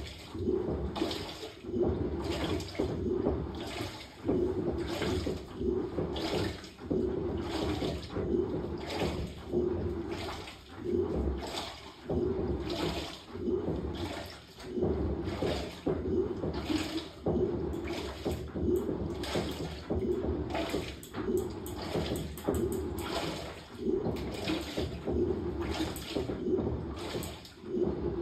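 Samsung top-load washing machine on a quick wash cycle, its wash action sloshing water around the tub in regular surges about once a second.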